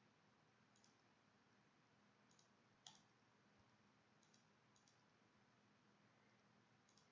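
Near silence with a handful of faint computer mouse clicks spread out, the loudest about three seconds in.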